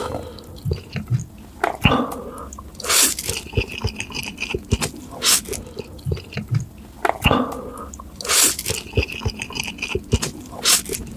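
Close-miked eating of noodles: loud slurps about every two to three seconds, with wet chewing and small clicks of the mouth in between.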